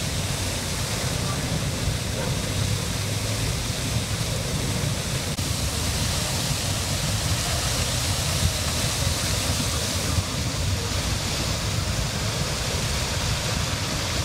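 Water gushing in a tall spray from a fire hydrant knocked open by a car, a steady rushing roar of uncontrolled full flow.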